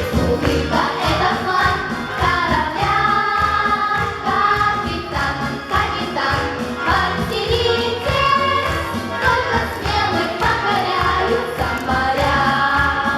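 A children's choir singing a lively song in unison over a backing track with a steady beat.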